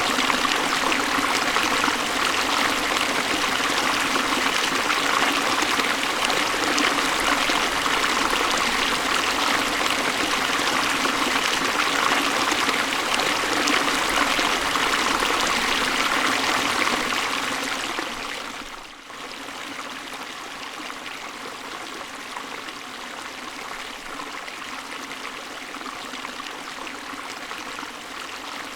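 Hill river flowing, a steady rushing of water. A little over halfway through it dips briefly and then carries on noticeably quieter.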